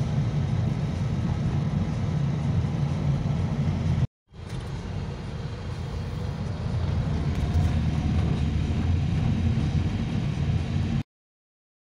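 Road and engine noise of a moving car heard from inside the cabin, a steady low rumble. It breaks off for a moment about four seconds in and stops shortly before the end.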